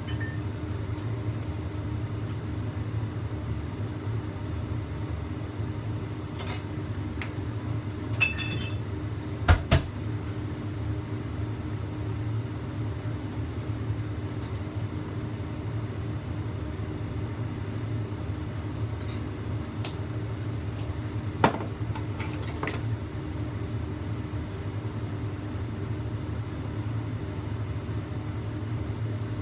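Steady low hum and rumble of a gas burner heating a covered wok of steaming water. A few scattered sharp clicks and knocks break in, the loudest about ten seconds in.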